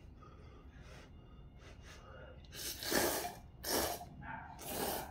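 A person slurping hot anchovy kalguksu noodles: three slurps about a second apart in the second half.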